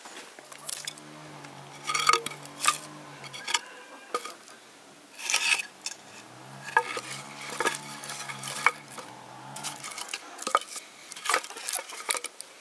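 Dry sticks and branches of firewood knocking and clattering against each other as they are handled and laid onto a stack, in irregular sharp clacks.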